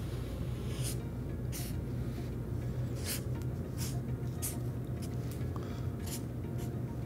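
Felt-tip marker drawing on paper: a series of short scratchy strokes, several a second at times, over soft steady background music.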